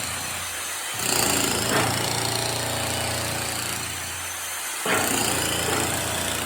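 A motor-driven tool or machine running with a low hum and a noisy rasp. It comes on sharply about a second in and again near five seconds.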